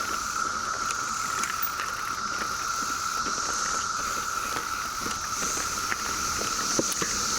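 Chorus of 17-year periodical cicadas: a steady, high droning whine with a fainter hiss above it, over scattered light ticks and clicks.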